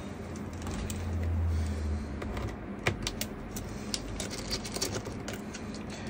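A T5 precision screwdriver working the screws of a laptop's bottom case, with handling noise. There is a brief low rumble about a second in, then scattered small clicks and ticks.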